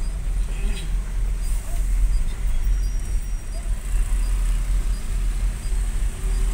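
Steady low engine rumble and road noise of a large vehicle moving slowly through traffic, heard from inside its cab.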